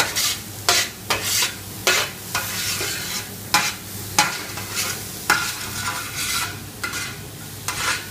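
A utensil scraping and stirring ingredients around a wide paella pan in quick repeated strokes, about two a second, over the steady sizzle of the paella base (onions, red pepper and squid) frying in oil.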